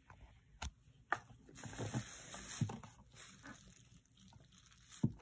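Bubble wrap crinkling as a hard plastic transformer case is picked up and turned on it, with a few sharp clicks and knocks; the loudest are about a second in and near the end.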